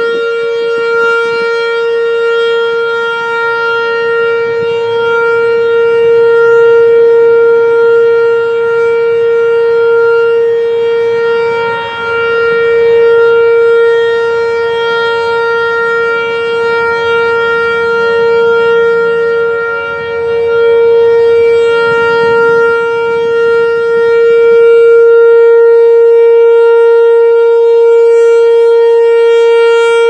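Whelen WPS 3016 electronic outdoor warning siren sounding a steady alert tone, one unchanging pitch that swells and fades in loudness as the rotating speaker array sweeps past. Wind rumbles on the microphone underneath.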